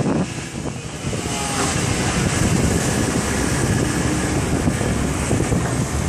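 Takeuchi TB290 excavator's diesel engine running hard while the boom and bucket dig dirt. It grows louder about a second and a half in and then holds steady.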